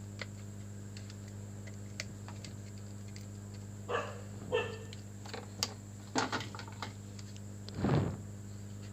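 Light clicks and taps of small plastic speedometer parts being handled and pressed together on a workbench, over a steady electrical hum. A louder, longer sound comes near the end.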